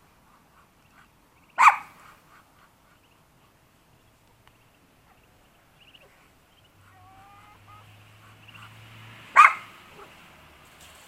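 Small dog barking twice: a single short bark about a second and a half in and another near the end, with faint chirps between.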